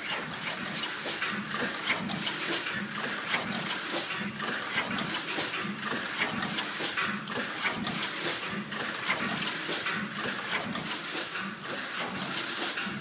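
Steam-driven Ingersoll Rand air compressor running steadily, with a rhythmic clicking and knocking from its moving gear about twice a second, its big-end oil hole freshly cleared of foreign matter.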